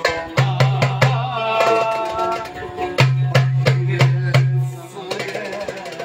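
Live Turkish wedding band music: a melody that bends and wavers in pitch over regular, sharp drum strokes with deep thuds. The drumming drops out about five seconds in, leaving the melody quieter.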